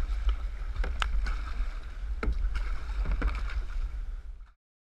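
Kayak paddle strokes splashing and dripping in the water, a handful of sharp splashes over a steady low rumble of wind on the microphone; the sound cuts off suddenly about four and a half seconds in.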